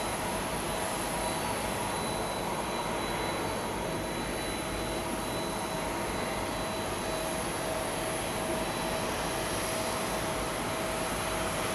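Boeing 767 freighter's jet engines running steadily at low power as it taxis, a steady rushing hum with a thin, even whine over it.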